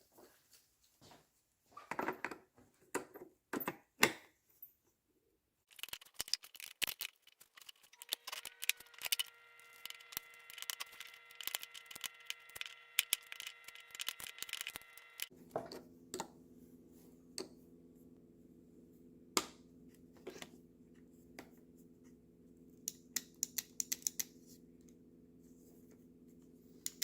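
Scattered clicks, taps and scrapes of hands and tools working on plastic and metal parts of an electric pressure washer as it is taken apart. A faint steady hum sits underneath from about six seconds in and drops to a lower hum about halfway through.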